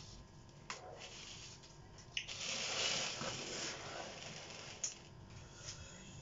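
A painted board scraping as it is slid and turned on a work table, a rough hiss from about two to four seconds in, with a few light knocks of the board and hands.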